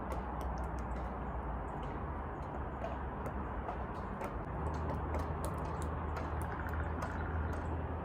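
Woodpecker pecking at wood, irregular sharp taps several a second, over a steady low hum in the background.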